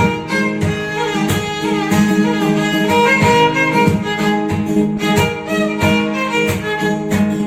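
Background music led by violin-like strings over a steady beat.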